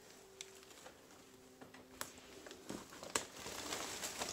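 Faint rustling and crinkling from someone moving through a cluttered room, with a few sharp ticks, getting louder and crackly from about three seconds in; a faint steady hum underneath.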